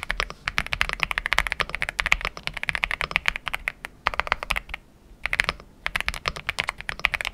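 Fast typing on an Aula F99 gasket-mounted mechanical keyboard: a rapid, continuous run of key clacks that breaks off briefly about four and five seconds in.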